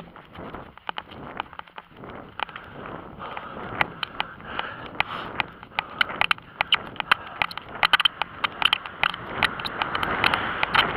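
Irregular clicks and knocks from a body-mounted camera moving along an asphalt road, over wind on the microphone; a car coming the other way gets louder near the end.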